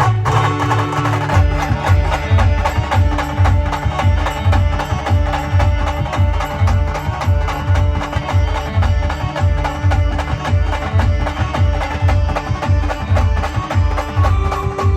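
A Maharashtrian band playing a dance tune: sustained melody instruments over a fast, busy, evenly repeating drum beat.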